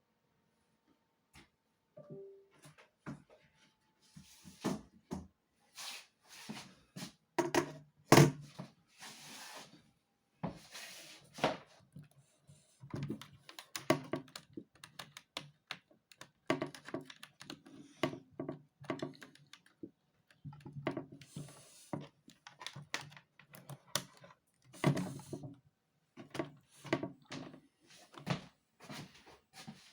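Irregular clicks and thunks from a laptop being handled and its keys pressed, loudest about eight seconds in.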